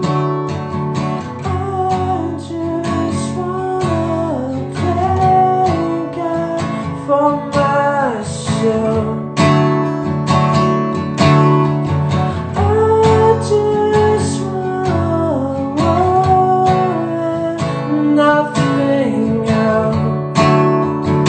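Acoustic guitar with a capo, strummed in a steady rhythm, with a wordless sung melody gliding up and down over the chords.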